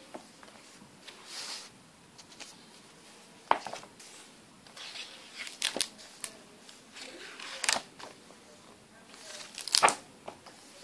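Pages of a thick hardcover comic omnibus being turned by hand: paper rustling and swishing, with several sharp slaps and knocks as pages fall and the book is handled.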